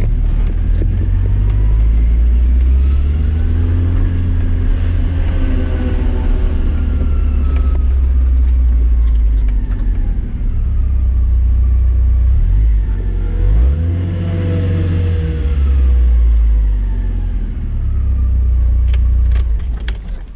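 Porsche 944's four-cylinder engine heard from inside the car, running hard with a heavy low drone, its pitch rising and falling repeatedly as it revs up and comes off. The sound drops away sharply right at the end.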